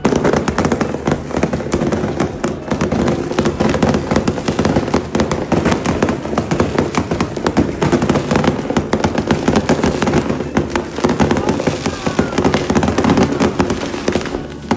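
A long, dense run of firecrackers popping in rapid crackling succession, with people's voices underneath.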